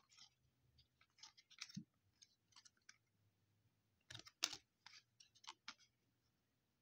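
Faint, scattered clicks and scrapes of 2020 Panini Prestige football cards being slid past one another by hand, with a louder cluster of snaps about four seconds in.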